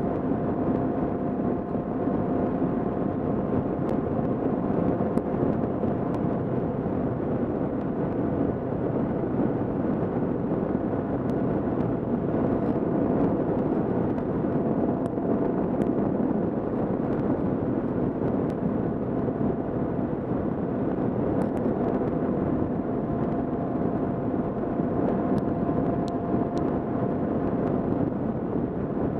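Kawasaki KLR650's single-cylinder four-stroke engine running steadily at cruising speed, with wind and road noise, heard from a helmet-mounted camera.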